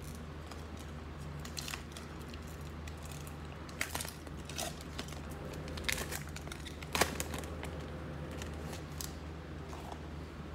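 Trading cards being handled and flipped through: scattered rustles and crinkles of card stock and packaging, with sharp clicks, the loudest about seven seconds in, over a steady low hum.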